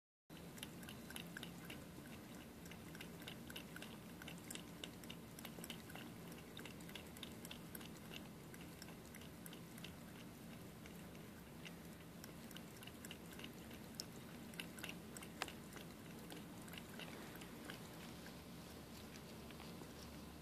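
Cat lapping water from a shallow dish: a quick run of soft wet tongue clicks at about three to four laps a second, growing sparser in the second half.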